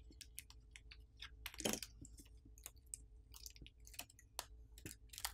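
Faint crackling and clicking of a smartphone battery being pried up and peeled off its adhesive, softened with isopropyl alcohol, with a louder crackle about a second and a half in.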